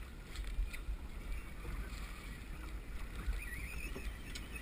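Low, uneven rumble of wind buffeting the microphone over a choppy sea, with a few faint clicks.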